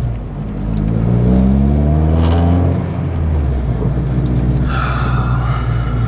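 Ford ZX2's four-cylinder engine pulling away from a stop, its pitch rising steadily for nearly three seconds, then dropping and running on more evenly. The AC/defrost is off, so the compressor is not loading the engine.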